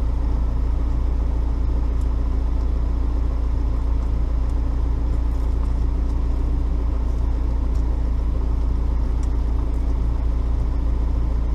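Steady low drone of an idling car engine, unchanging throughout, with a few faint light clicks over it.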